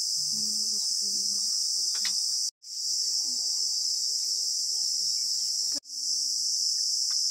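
Steady, shrill chorus of insects such as crickets or cicadas, broken twice by a brief dropout in the audio.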